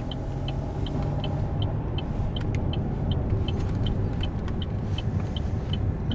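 Car engine and road rumble heard inside the cabin as the car makes a left turn, with the turn-signal indicator ticking evenly, a little under three ticks a second.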